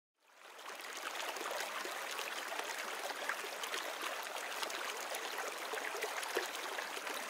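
A stream running over stones: a steady rushing, babbling water sound that fades in over the first second and then holds even.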